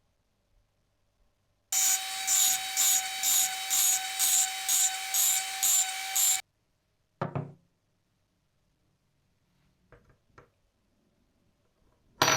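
Rhythmic scraping strokes of a tool on wood, about two and a half a second, over a steady whine. The sound cuts off sharply after about five seconds and is followed by a single knock, a couple of faint clicks and a clatter near the end.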